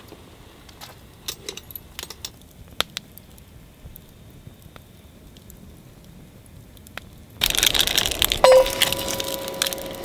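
Scattered light clinks and knocks of cooking gear, then, about seven seconds in, a sudden loud, bright sizzle, like food hitting a hot pan, that carries on steadily with a thin steady tone over it near the end.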